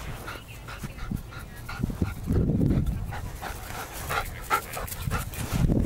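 German shepherd dog panting and giving short whines, with a few heavy low thumps about two and a half seconds in and again near the end.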